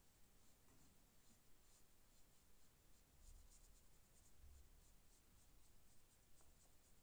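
Faint, quick scratchy strokes of a paintbrush dabbing and brushing paint onto paper, one short stroke after another.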